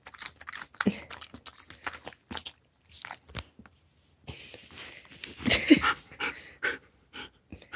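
A husky snuffling and breathing close to the microphone as it noses about, with scattered small clicks and rustles; the sounds are busiest around the middle.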